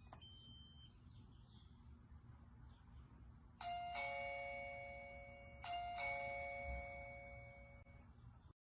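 Doorbell chime playing a falling two-note ding-dong twice, starting about three and a half seconds in, each ring fading out over about two seconds.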